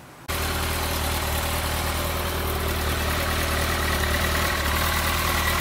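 2015 Kawasaki ZX14R's inline-four engine idling steadily through its stock twin mufflers.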